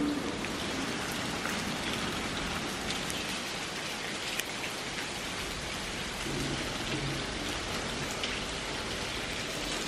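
Steady rain falling on wet pavement and puddles, an even hiss dotted with the ticks of single drops.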